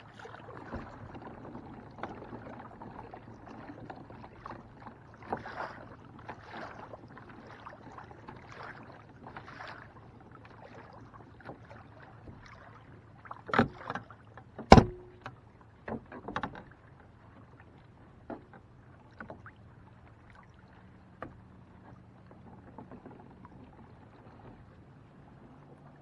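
Water sloshing around a kayak, with small ticks and a cluster of sharp knocks between about 13 and 17 seconds in, the loudest near 15 seconds.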